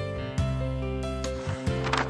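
Instrumental background music with sustained plucked notes and a regular beat. Near the end a short rushing swoosh rises over it.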